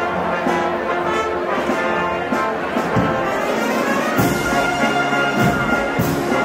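Brass band music: held trumpet and trombone notes over drum hits.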